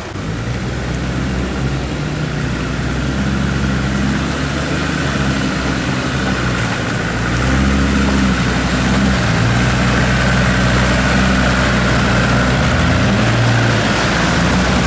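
Off-road 4x4 engine running, its pitch shifting up and down in steps as the revs change, louder from about halfway through.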